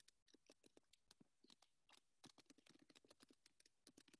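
Faint typing on a computer keyboard: a quick, irregular run of keystroke clicks as a password is entered.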